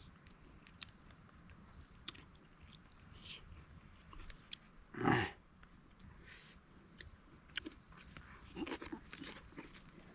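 A person eating with the mouth close to the microphone: chewing and lip-smacking with scattered small clicks, and one louder mouth noise about five seconds in.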